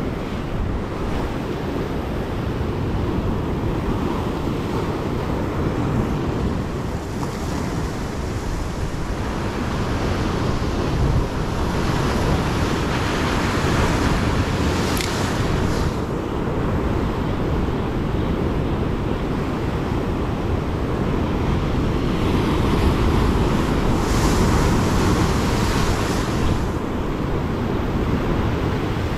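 Sea waves breaking and washing over rocks close below, surging up a few times, with wind buffeting the microphone throughout.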